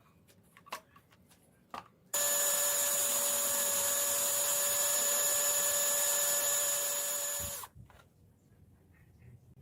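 A small motor or power tool running steadily for about five seconds with a loud hiss and a high, even whine, switched on about two seconds in and cutting off abruptly. Faint clicks before and after.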